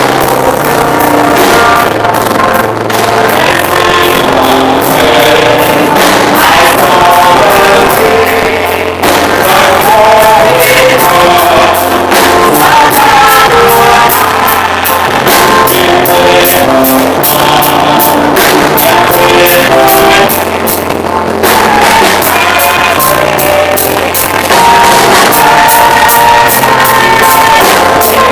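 Loud gospel music with singing over a steady drum beat.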